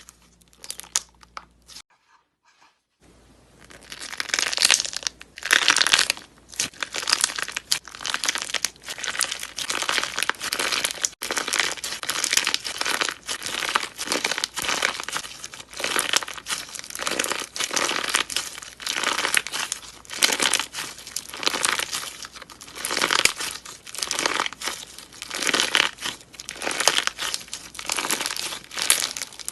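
Slime being squeezed and pressed by hand, giving dense crackling and crinkling noise in repeated surges. A brief pause comes about two seconds in.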